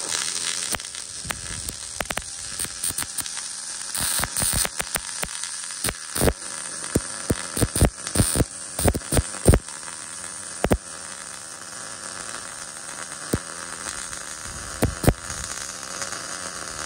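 Wire-feed (MIG) welding arc on steel tubing, laying a continuous bead: a steady hiss broken by many sharp pops of spatter.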